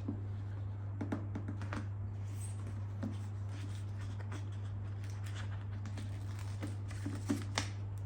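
Soft rustling and scattered light taps of fingers pressing and smoothing an adhesive vinyl decal down onto a plastic motorcycle tail fairing, over a steady low hum.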